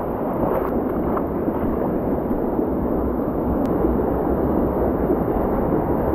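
Steady, loud rush of a mountain stream's water flowing over rock in a gorge.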